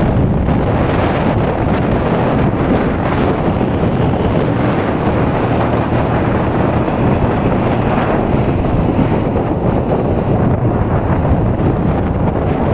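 Keeway K-Light 202 motorcycle cruising at speed, its engine running steadily under heavy wind noise on the microphone.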